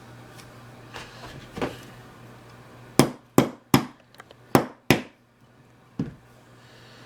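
Small hammer tapping a pin punch: five sharp strikes in quick succession around the middle, with a few lighter taps before and after, driving out a roll pin in a Llama Comanche III revolver's frame.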